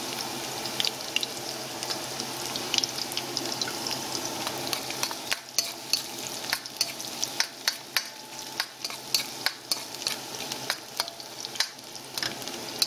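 Chopped garlic and ginger sizzling in hot oil in a metal pan, the first sauté for arroz caldo. From about five seconds in, a spoon stirring them clicks and scrapes against the pan every half second or so.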